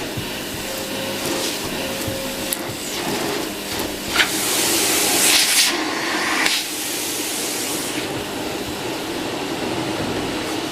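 Electrolux UltraFlex canister vacuum cleaner running steadily. Its airflow hiss grows louder in a few brief bursts about halfway through.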